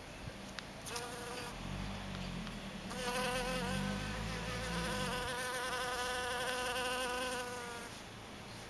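Honeybee buzzing in flight close to the microphone. A short buzz comes about a second in, then a steady buzz with a slight waver in pitch starts about three seconds in and stops near the end.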